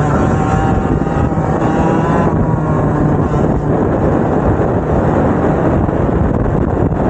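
Two-stroke racing kart engines running, loud and continuous, with a higher engine whine heard over the first couple of seconds.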